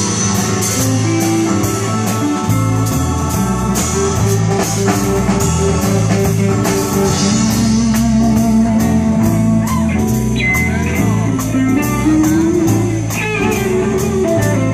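Live band playing: electric guitar, bass guitar, electric keyboard and drum kit in an instrumental passage, cymbal strokes keeping a steady beat of about three a second.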